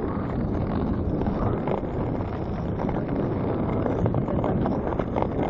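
Wind buffeting the microphone, a steady low rumbling noise, with the scrape of ice skates on the lake ice beneath it.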